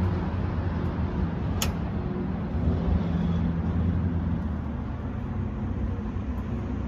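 Truck diesel engine idling, a steady low rumble, with one sharp click about one and a half seconds in.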